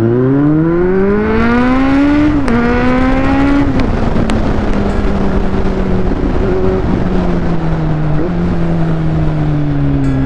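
Motorcycle engine revving up hard under acceleration, then shifting up twice in quick succession, about two and a half and four seconds in. It then settles into a steady, slowly falling note while cruising, with wind noise over it.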